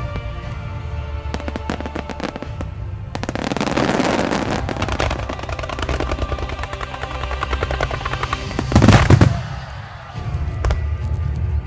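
Fireworks crackling and popping in rapid strings, with a dense barrage about three to five seconds in and the loudest burst about nine seconds in, over background music.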